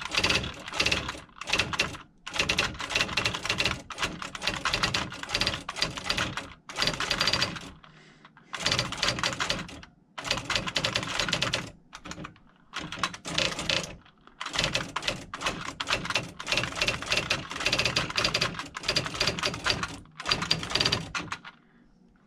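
IBM Wheelwriter 30 daisy wheel electronic typewriter typing fast: rapid runs of sharp print strikes lasting a second or two each, with brief pauses between them, stopping shortly before the end.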